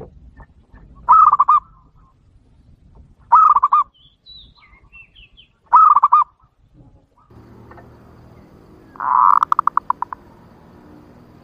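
Zebra dove (perkutut) lure bird cooing: three short, clear warbling trills about two seconds apart, then near the end a louder call that breaks into a quick run of pulses. It is the clear, sharp call used to draw in wild male zebra doves.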